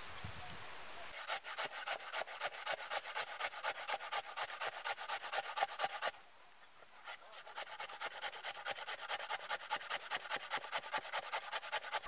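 A hand grater rasping in quick, even strokes, about five a second, as a raw vegetable is grated into a plastic bowl. The strokes pause briefly about halfway through, then carry on.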